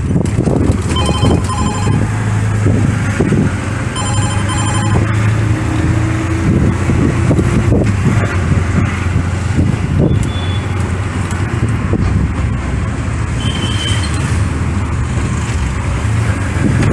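Busy city road traffic with a steady engine drone. A rapid pulsed beeping comes about a second in and again about four seconds in, with a brief high tone later on.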